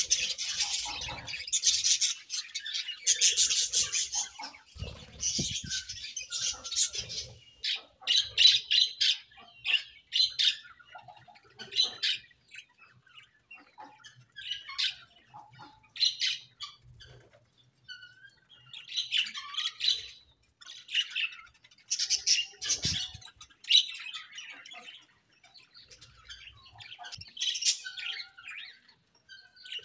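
Budgerigars chirping and chattering in bursts of rapid, high chirps separated by short pauses; the chatter is densest in the first several seconds.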